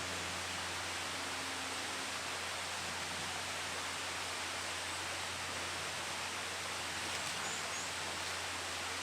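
Steady outdoor background noise with an even rushing hiss and a low hum, and two faint, short high chirps about seven seconds in.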